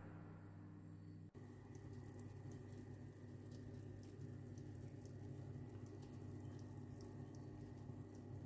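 Faint sizzling and crackling of cauliflower roasting on a hot oven baking tray: scattered tiny crackles over a low steady hum. It begins about a second in, once the fading background music has died away.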